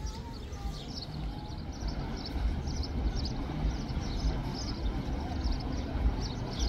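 Outdoor ambience: a steady low rumble with small birds chirping over and over in short, high notes.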